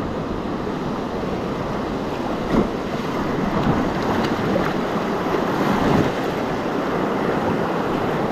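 Whitewater rapids rushing steadily around an inflatable kayak, with a few paddle splashes, the clearest about two and a half seconds in, and wind buffeting the microphone.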